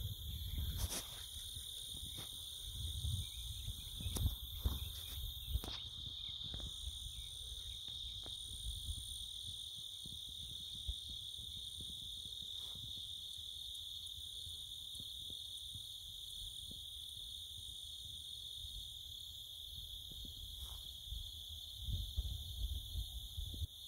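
Steady, high-pitched chorus of insects trilling without a break, with an intermittent low rumble on the microphone and a few faint clicks in the first six seconds.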